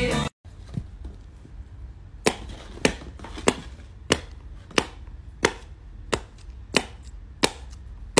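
A regular series of sharp clicks, one about every two-thirds of a second, slowing very slightly, after a single click about a second in, over a low steady hum.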